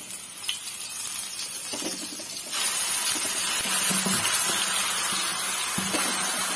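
Wet ground paste of onion, garlic, ginger and black pepper hitting hot oil in a steel pan and sizzling. The hiss builds slowly, then jumps much louder about two and a half seconds in as the bulk of the paste drops into the oil.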